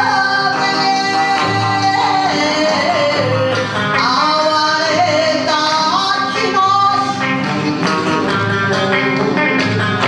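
A woman singing Kawachi ondo, a sliding, bending vocal line over steady instrumental backing.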